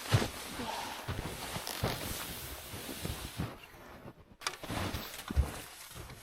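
Footsteps in snow on a frozen lake: irregular soft steps with rustling between them.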